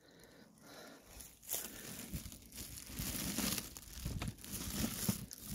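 A white plastic bag crinkling and footsteps on dry leaves and stones, starting about a second in.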